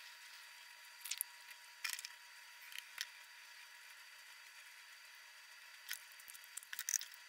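Hands patting and pressing wet paper pulp onto a plastic grid screen: a few short, faint wet squishes and pats, with a quick cluster of them near the end.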